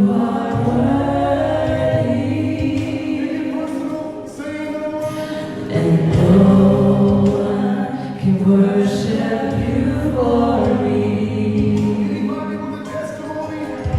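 Christian worship song sung by several voices together, with long held notes over music.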